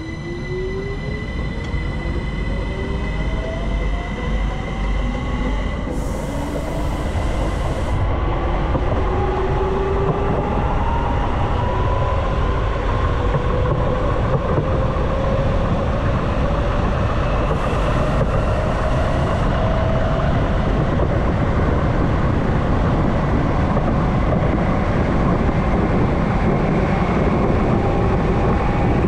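ÖBB 4024 Talent electric multiple unit accelerating away from a station. Several whining tones from the electric traction drive climb steadily in pitch as speed builds, over a growing rumble of wheels on rail.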